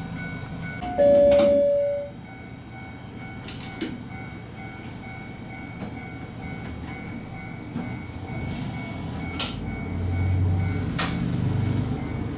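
A single train horn blast of about a second, a steady tone that steps down slightly in pitch. Then the diesel railcar's engine hums, with a few sharp clicks, and the hum grows louder near the end.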